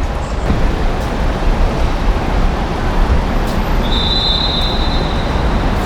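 Steady rumble of vehicle and traffic noise, heaviest in the low end, with a thin, high steady tone coming in about four seconds in.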